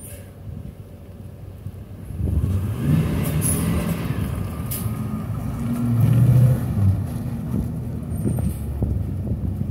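School bus engine running quietly, then revving up about two seconds in and pulling hard as the bus slides across icy, snow-covered pavement; the engine note swells to its loudest a little past the middle.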